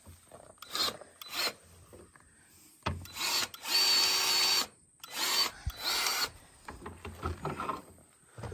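Grease gun being worked on a Cat 262C skid steer's grease fittings, forcing in thick grease in a series of short bursts, the longest lasting about a second.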